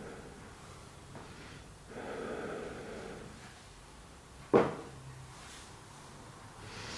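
A woman's slow, audible breath about two seconds in, held in a yoga stretch, then a single short knock about four and a half seconds in as she shifts on the mat.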